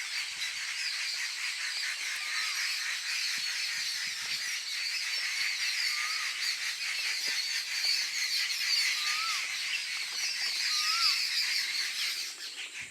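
A group of forest birds, jungle babblers and rufous treepies among them, giving continuous harsh alarm chatter at a predator, with a short whistled note that rises and falls, heard four times.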